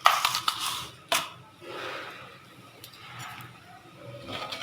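Mustard and cumin seeds spluttering and crackling in hot oil in a pan as the tempering heats, with a sharp click about a second in.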